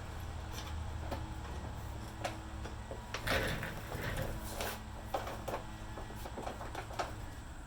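Scattered light metal clicks and knocks of bolts, washers and lock nuts being fitted to the ladder mount by hand, over a steady low hum.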